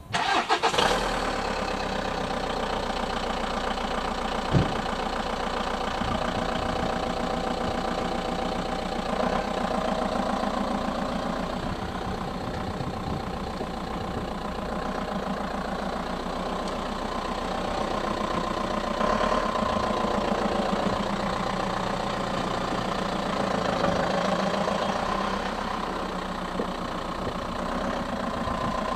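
Seat Ibiza 6J's engine starting and then running steadily at idle and low speed as the car moves off slowly. There is one sharp knock about four and a half seconds in.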